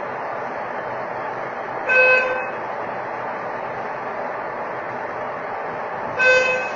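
A short, buzzer-like electronic tone sounds twice, about four seconds apart, each lasting about half a second, over a steady noisy background.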